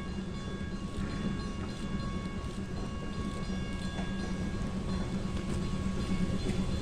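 NGG16 Garratt steam locomotive running light towards the listener, its sound growing louder, over steady ringing tones from the level-crossing bell.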